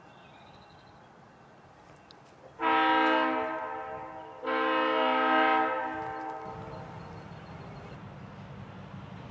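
Train horn sounding two long blasts, one right after the other, followed by the steady low rumble of the approaching locomotive.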